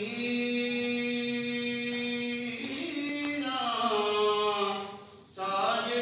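A solo man's voice reciting a naat in a drawn-out, melodic singing style: one steady held note for the first couple of seconds, then a line that rises and falls, broken by a short breath about five seconds in.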